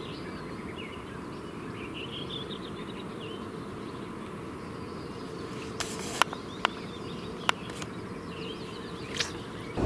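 Small birds chirping and twittering over steady outdoor ambience, with a few sharp clicks about two-thirds of the way in.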